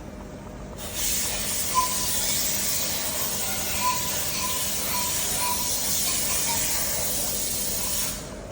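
A pressurised jet hisses steadily, starting abruptly about a second in and cutting off near the end.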